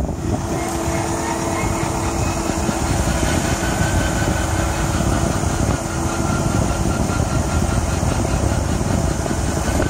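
Steady whine from the front left wheel well of a 2014 Ram Promaster EcoDiesel van driving in gear, over heavy road and wind rumble. The whine goes away when the van is shifted to neutral, which the owner takes for a transmission-related problem.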